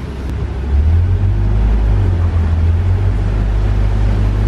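Safari truck's engine running with a low, steady rumble that grows louder about a second in as the truck gets under way.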